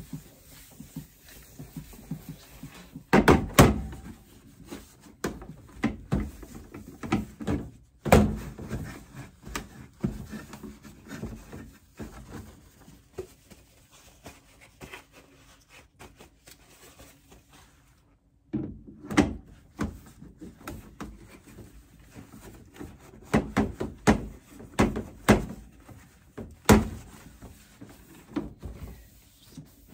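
Irregular knocks and thumps of items being handled and set down on a stainless steel work counter, mixed with rubbing as the counter and equipment are wiped down. The loudest thumps come about three seconds in.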